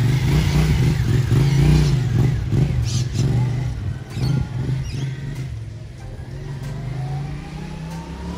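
Yamaha MT-07 parallel-twin engine with an Akrapovič exhaust, revving as the motorcycle pulls away, then growing quieter as it rides off down the street.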